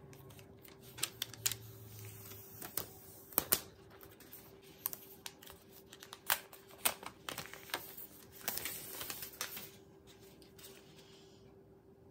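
Handling of a new iPad Air in its thin plastic protective wrap: scattered sharp crackles and clicks of the film, with a denser rustling crackle about three-quarters of the way through. A faint steady hum runs underneath.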